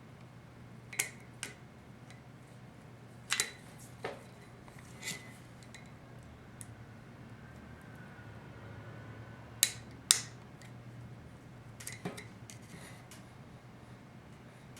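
Intermittent sharp metal clicks and clinks of hand tools and small parts against a 4L60E transmission pump as a part is worked into it, the loudest a pair about ten seconds in, over a steady low hum.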